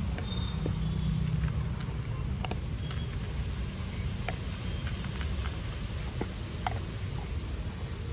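A dog eating dry kibble from a plastic bowl: irregular sharp crunches and clicks of the pellets. Under it runs a steady low rumble.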